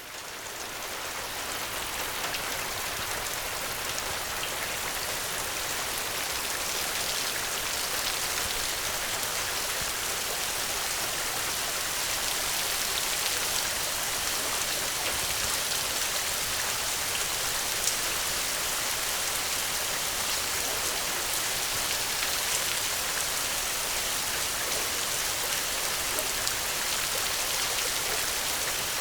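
Steady rain falling, a dense hiss of drops with fine scattered patters on surfaces. It fades in over the first couple of seconds, then holds even.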